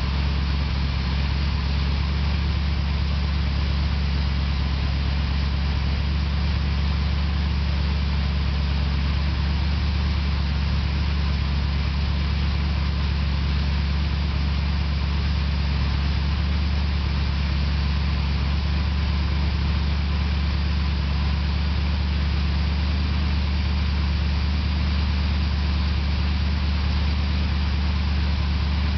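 Freshly rebuilt four-barrel carbureted V8 engine idling steadily on its first run after a frame-off build, with no revving.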